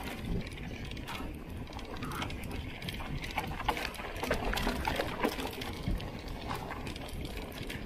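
Hardtail mountain bike descending a loose, rocky trail: tyres crunching over gravel and stones, and the bike rattling, with frequent sharp knocks as it hits rocks.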